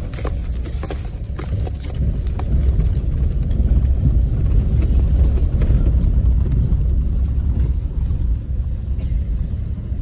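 Car being driven: a steady low road and engine rumble heard inside the cabin.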